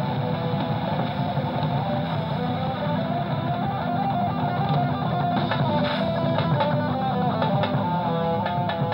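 Background music led by a plucked guitar melody over a steady accompaniment.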